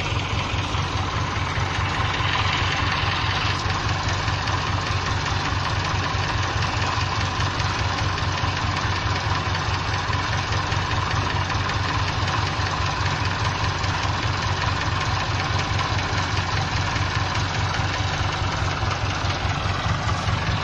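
Farm tractor's engine running steadily at low speed with an even pulse.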